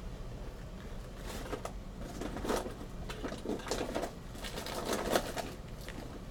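Steady low machinery hum of a car ferry inside its passenger corridor, with irregular soft rustles and knocks from about a second in until just past five seconds.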